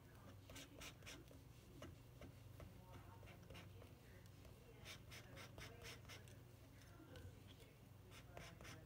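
Faint short scraping strokes of oil paint being mixed and spread on a palette, in three short runs: near the start, around the middle and near the end, over a faint steady low hum.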